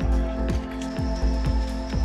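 Music with a steady beat of about two low drum strokes a second over held tones.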